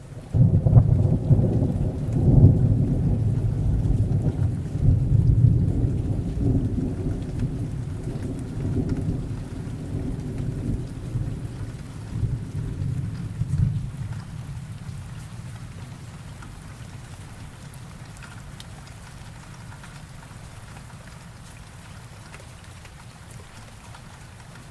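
A long peal of thunder rumbles in about half a second in, loudest in the first few seconds and rolling in surges, then fades after about fourteen seconds into steady rain.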